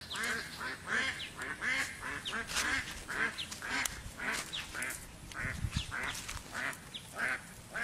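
Ducks quacking in a quick, irregular series of short calls, about two a second.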